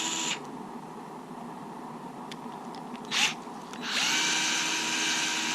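A small electric power-tool motor runs with a steady whine, switches off shortly after the start, and then spins back up to speed about four seconds in. In the quieter gap there is a light click and a sharper knock about three seconds in.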